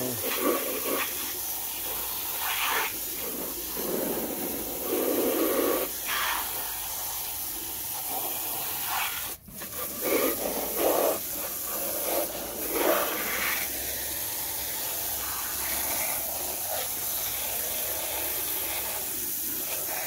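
Fine jet of water from a spray nozzle hissing steadily and splashing as it hits muddy plastic toy vehicles, the splashing rising and falling as the jet moves from toy to toy. A short break about nine seconds in.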